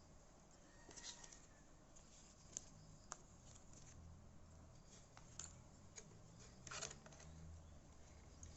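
Faint handling sounds of small parts being worked on: scattered sharp clicks and one brief scrape about seven seconds in, over a low hum.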